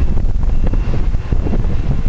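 Wind buffeting the microphone: a loud, uneven low rumble, with a faint steady high whine of aircraft engine noise beneath it.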